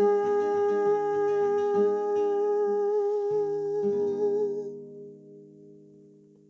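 Closing bars of a song accompaniment: plucked-string chords and bass notes under one long held note. It fades out from about four and a half seconds in.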